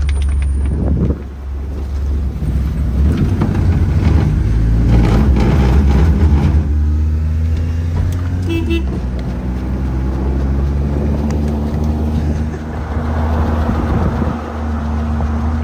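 Small truck's engine idling steadily with the air conditioning running, a low, even hum. A brief short beep sounds about halfway through.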